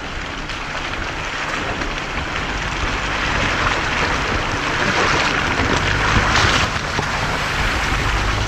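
Jeep Wrangler driving, its engine hum under a steady rushing noise, the engine growing louder near the end.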